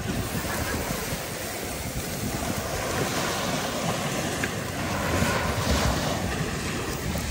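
Wind buffeting the microphone over a steady wash of sea surf, a little stronger in the second half.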